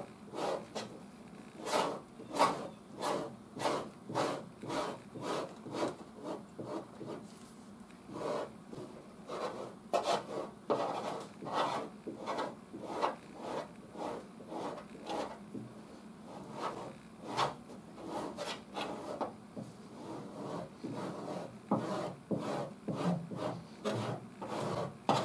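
Stanley Surform half-round blade shaving partly hardened body filler off a steel fender patch: a steady run of rasping strokes, a little under two a second.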